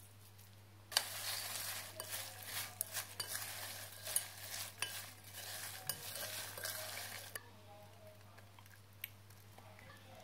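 A spoon stirring corn kernels and spice powder in a glass bowl, scraping and clicking against the glass, starting about a second in and stopping about seven seconds in.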